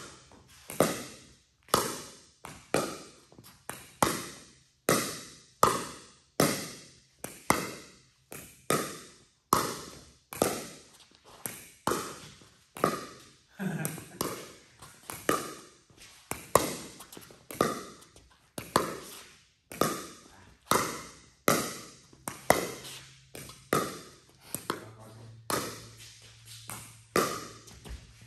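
Pickleball rally: a steady run of sharp pops as Paddletek Tempest paddles strike a plastic pickleball, mixed with the ball bouncing on the court, roughly one or two a second. Each hit rings out with an echo in a large hall.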